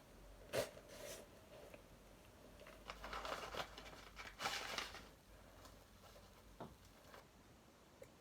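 Faint tearing and rustling of a parcel's packaging being opened by hand, with a couple of sharp clicks near the start and the loudest tearing about halfway through.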